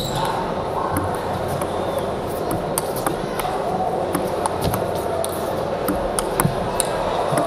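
Table tennis ball struck back and forth in a rally: a run of sharp clicks as the ball meets the bats and bounces on the table, over a steady background murmur.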